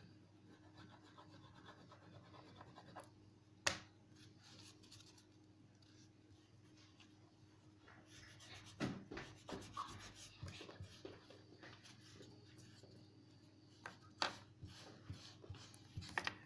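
Yalong oil pastel scratching and rubbing on paper as an area is coloured in, faint. A sharp click comes about four seconds in, and light knocks and taps are scattered through the second half.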